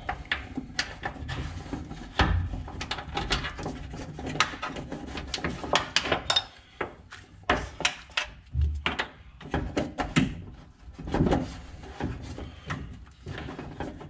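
Irregular clicks, knocks and rubbing as a heavy battery cable is handled and fed through a car's body and engine bay.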